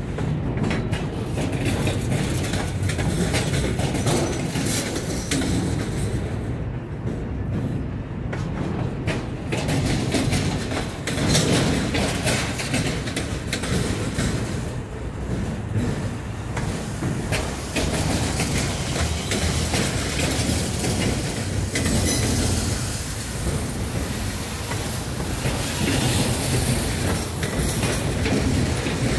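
Freight train cars rolling past, their wheels clicking and clattering over rail joints over a continuous low rumble.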